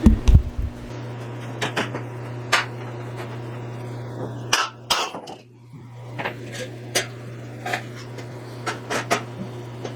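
Scattered sharp metal knocks and clinks, with a few heavy thumps right at the start, from steel bumper parts being handled and tapped into place. A steady low hum runs underneath and briefly drops out just after the middle.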